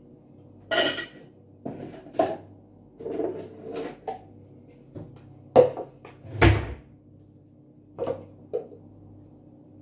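A spoon stirring a thick caramel cream mixture in a plastic jug, knocking and scraping against its sides in irregular strokes, about eight in all. Under it the small ice-cream maker's motor hums steadily, turning the paddle in the frozen bowl.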